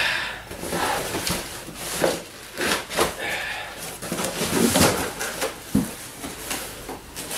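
Cardboard shipping box and packed metal roof-rack parts being handled: rustling and scraping of cardboard with repeated knocks and thuds as the pieces are shifted and the long box is lifted.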